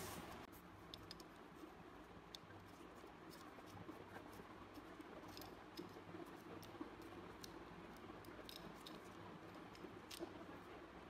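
Faint, scattered small metallic clicks and scrapes as a Beretta Model 1934 pistol's slide and frame are handled and fitted together by gloved hands, with a brief rustle at the very start.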